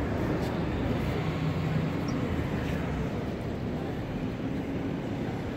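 City square ambience: a steady low rumble of passing traffic.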